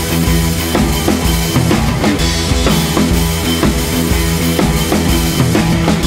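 Background music with a steady drum beat, about two beats a second, over sustained bass notes.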